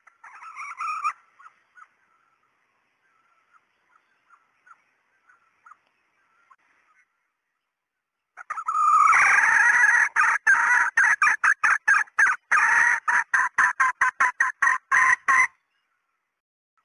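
Red junglefowl hen calling: a short call at the start, a few soft clucks, then from about halfway a loud call lasting several seconds that breaks into a rapid run of repeated notes before stopping.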